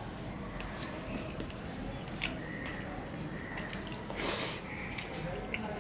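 Close, wet eating sounds of a man eating rice and fish curry by hand: chewing with scattered lip smacks and clicks, and a louder wet mouthful sound about four seconds in.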